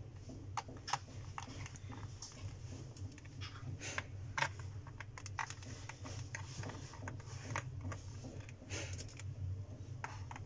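Scattered light clicks, taps and scrapes of fingers and small tools working on a laptop's plastic base casing, over a steady low hum.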